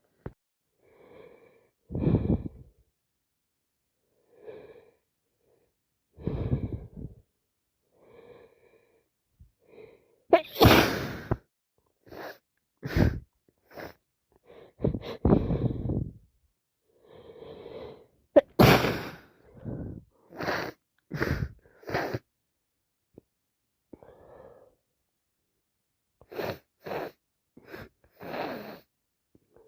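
A woman sneezing again and again from a heavy head cold, a dozen or more sneezes, several coming in quick runs, with quieter catching breaths between them.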